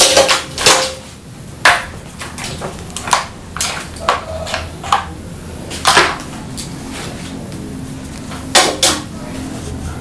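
Crow pecking and tugging at a plastic slow-feeder puzzle toy on a glass tabletop: sharp, irregular clacks and knocks of beak and claws on hard plastic and glass, about a dozen in all, with a cluster at the start and loud ones a little under two seconds in, about six seconds in and near the end.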